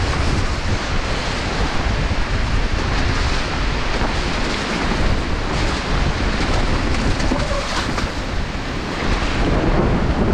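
Steady, loud rushing of wind buffeting the microphone, with a heavy low rumble, as a mountain bike descends a wet forest trail in heavy rain.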